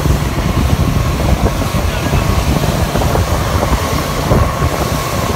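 Motorboat under way: a loud, steady rumble of engine and water noise, with irregular knocks and wind buffeting the microphone.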